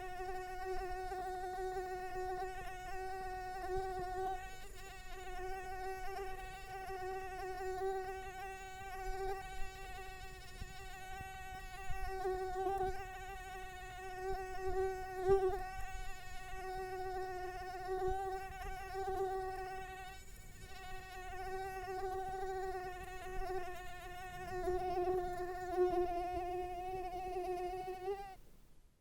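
A mosquito buzzing, a steady high-pitched whine that wavers slightly in pitch and loudness as it flies, dipping briefly twice before it fades out near the end.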